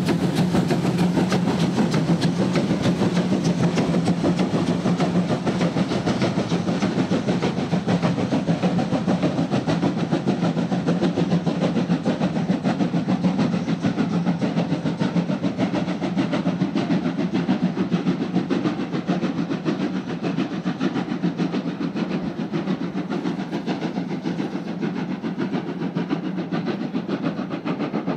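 Steam train going by with its locomotives working hard, a dense run of exhaust beats over the rumble and clatter of the wheels, including German class 52 steam locomotive 52 1360-8. The sound holds steady, then slowly fades over the second half as the train draws away.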